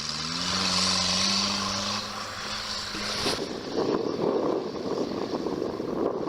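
Sherp ATV engines running with a steady hum that rises slightly in pitch. About three seconds in the sound changes abruptly to a rough, fluttering rumble like wind on the microphone.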